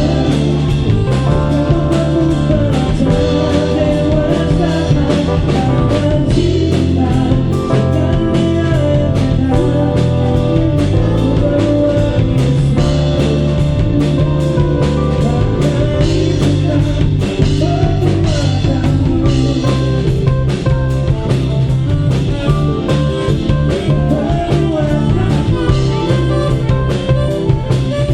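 Live band playing a mid-tempo song with electric guitar, bass and drum kit, with singing.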